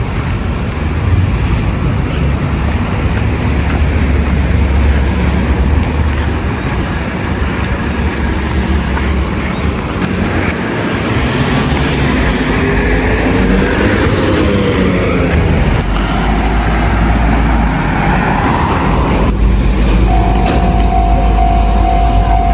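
Electric train running over the level crossing with a steady low rumble, its motor whine rising and then falling about halfway through. Near the end a steady high tone starts.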